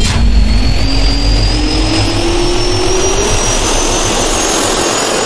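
Jet turbofan engine spooling up: a steady roar with a whine that climbs slowly in pitch.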